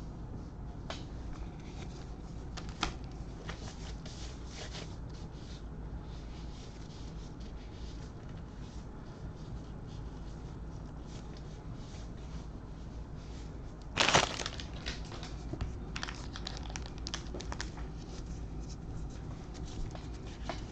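Crinkling and rustling as a trading-card pack's wrapper is torn open and the cards are handled, with scattered small clicks and one louder, sudden tear or crinkle about two-thirds of the way in.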